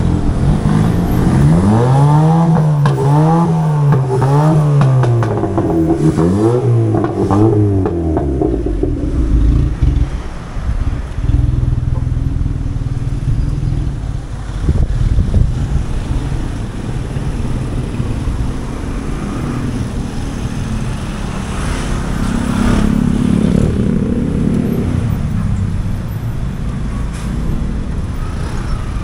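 Street traffic: vehicle engines running close by. For the first eight seconds or so one engine tone rises and falls about once a second, then a steady low traffic rumble.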